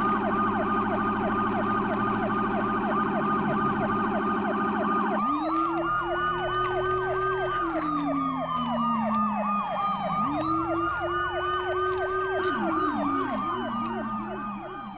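Electronic siren sounds from several battery-operated toy trucks going at once: a quick yelp of short falling sweeps repeating throughout, a rapid warble for the first few seconds, then a slower wail that rises and falls twice. The sound fades away near the end.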